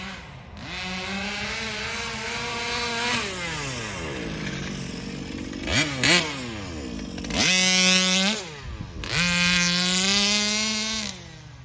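HPI Baja 5B's small two-stroke gas engine revving up and holding high revs for a few seconds, then easing off. Two quick throttle blips follow, then two more high-revving runs of about one and two seconds, with the engine dropping back near the end.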